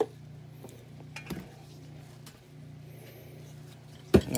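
Metal outboard lower-unit parts and tools handled on a workbench: a sharp clink at the start, a lighter knock about a second in, and a louder knock near the end as the gearcase housing is moved and set down, over a steady low hum.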